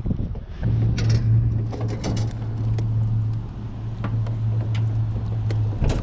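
Small electric trolling motor humming steadily as the boat is turned around; the hum starts about a second in and cuts off near the end. Light clicks and jingles of fishing tackle sound over it.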